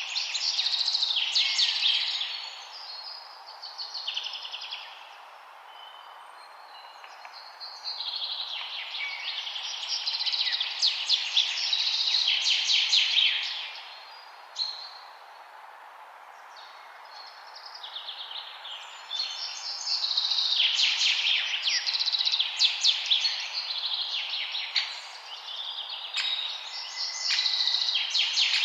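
Songbirds singing in bouts of rapid, trilling high-pitched song, several seconds each with short lulls between, over a steady background hiss.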